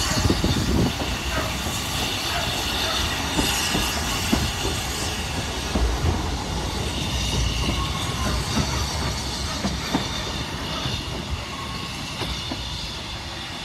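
Narrow-gauge passenger carriages rolling over the track and away, wheels clicking over the rail joints with some high wheel squeal on the curve. The sound fades slowly as the train draws off.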